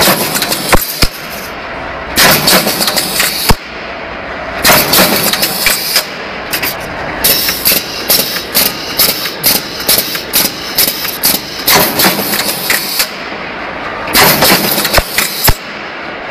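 Punch press with an NC automatic feeder stamping rows of holes in a metal sheet. It runs in bursts of rapid, closely spaced strokes a few seconds long, with a few single sharp knocks between them.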